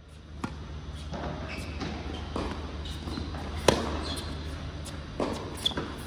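Tennis rally on an indoor hard court: rackets strike the ball with sharp pops, the loudest about three and a half seconds in, with fainter hits and ball bounces in between, over a steady low hum.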